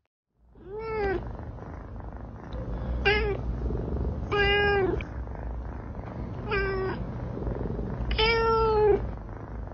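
Domestic cat meowing five times, short calls with the two longest in the middle and near the end, over a steady low background rumble.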